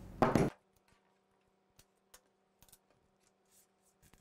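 A brief burst of voice at the very start, then faint scattered clicks and light rattles of small robot-kit parts (roller chain, sprockets, hardware) being picked up and moved off a cutting mat.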